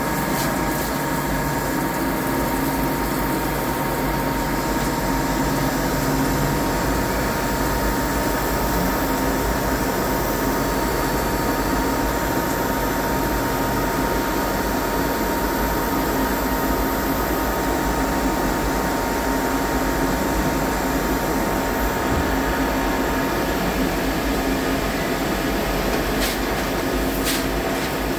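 CNC lathe running steadily: a continuous machine hum with a faint steady whine, and two brief clicks near the end.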